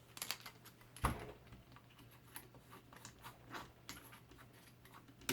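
Faint, scattered light clicks and taps of small hard objects being handled, with one sharper knock about a second in.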